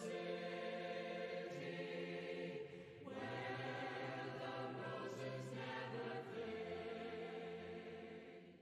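A choir singing a slow hymn in long held chords, with a chord change about three seconds in, fading out near the end.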